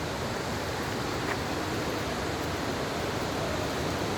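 A waterfall's water rushing, a steady, unbroken noise.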